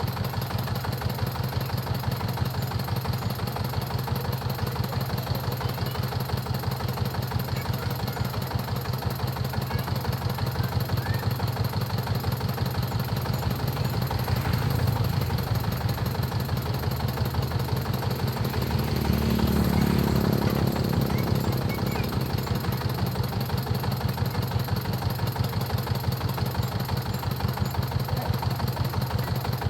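Diesel engine of a maize threshing machine running steadily with an even, rhythmic beat. It grows louder briefly twice, about halfway through and again about two-thirds of the way through.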